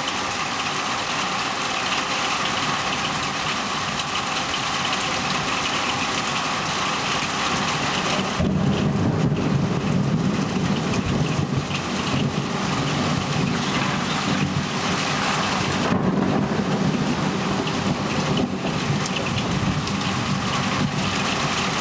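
Heavy rain falling steadily during a thunderstorm. Low thunder rumbles in about eight seconds in and swells again about sixteen seconds in.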